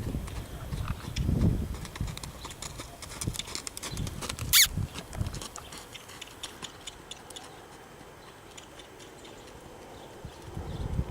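Hoofbeats of a yearling Quarter Horse gelding moving, a scattered clip-clop, with one sharp, loud crack-like sound about four and a half seconds in. The hoofbeats fade over the second half.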